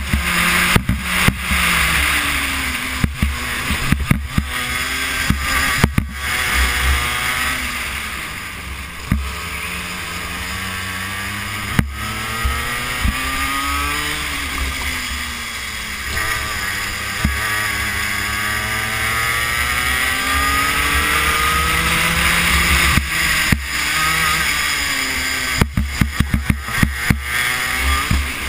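Racing kart engine heard onboard, its pitch climbing and dropping again and again as the kart accelerates and slows through the lap. Many short sharp knocks and crackles come through the microphone, bunched near the start and near the end.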